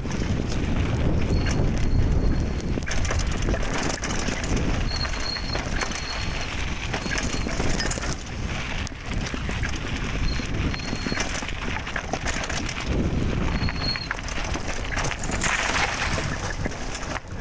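Mountain bike riding down a dirt singletrack: tyre rolling noise and the bike rattling over the trail, picked up by a handlebar-mounted phone, with a few brief high-pitched squeaks.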